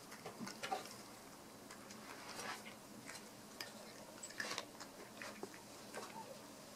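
A cat crunching dry kibble from its bowl: faint, irregular crunches and clicks of chewing.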